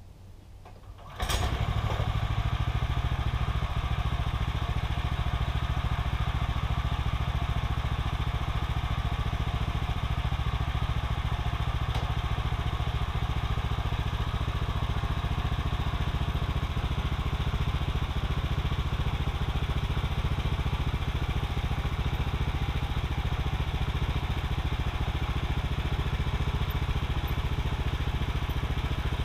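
Gas engine of a Woodland Mills HM126 portable bandsaw mill starts suddenly about a second in, then runs steadily.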